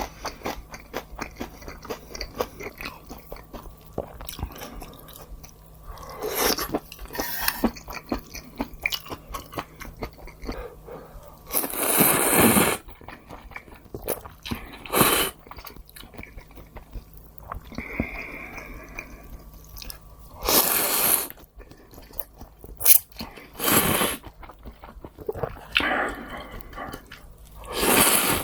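Close-miked mukbang eating: steady chewing with small wet clicks, broken by about eight louder bursts of biting and eating noise, the longest about a third of the way through.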